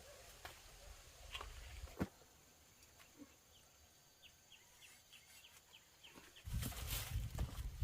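A bird chirping faintly in a quick run of short high notes, with a few scattered clicks and one sharper click about two seconds in. Louder low rustling noise starts about six and a half seconds in.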